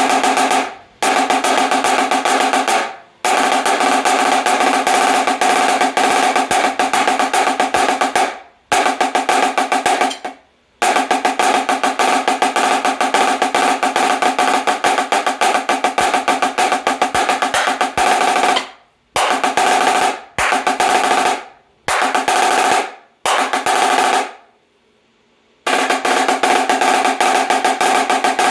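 Marching snare drum, its top head cranked to a very tight 'tabletop' tension, played in sustained rolls with a high, ringing pitch. The rolls stop and start again about ten times, some lasting several seconds, others about a second.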